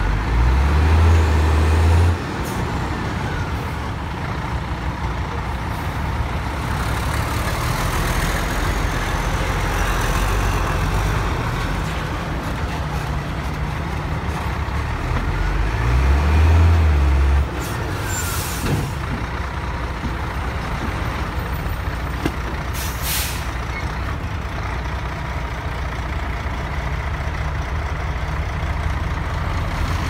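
Diesel engines of two tipper trucks running while their raised beds dump soil, the low rumble swelling louder twice for a couple of seconds. Short hisses of air now and then.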